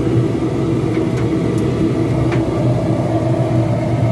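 Homemade propane forge running: the steady roar of the propane burner, blown by a hairdryer into a fire-brick box, with a steady hum from the blower.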